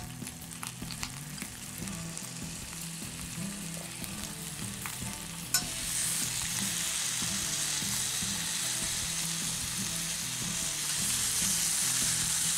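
Skewered marinated chicken tikka pieces sizzling in an oiled grill pan, with a few light clicks in the first couple of seconds. About five and a half seconds in, after another click, the sizzle grows louder and holds as a steady hiss.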